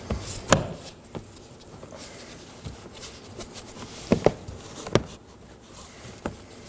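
Several sharp plastic clicks and knocks, spread out, as the door's master window switch panel is pressed down into the trim and its clips seat.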